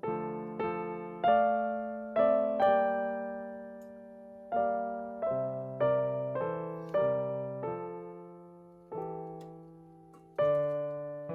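Background music: a solo piano playing a slow Russian folk melody, each note struck and left to die away.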